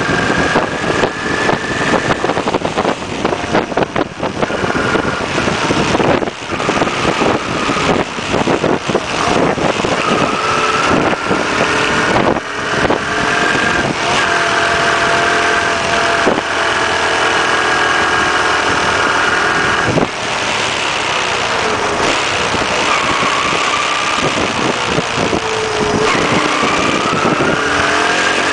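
Honda CT110 Postie bike's air-cooled single-cylinder four-stroke engine running under way, its pitch holding for stretches and then falling or rising as the bike slows and speeds up. Wind buffets the microphone throughout.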